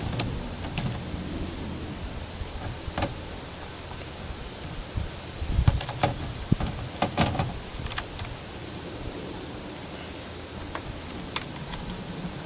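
Scattered clicks and knocks of a rifle scope being handled and fitted onto an airsoft sniper rifle, with a low rumble of handling noise. The clicks cluster in the middle, with one sharp click near the end.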